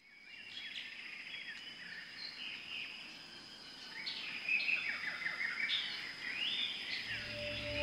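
Wild birds chirping and calling, many short overlapping phrases, over a steady high-pitched tone. Music fades in near the end.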